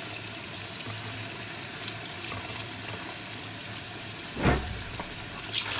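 Kitchen tap running steadily into a stainless steel sink, water splashing over lamb tripe in a colander. A single louder splash or knock about four and a half seconds in.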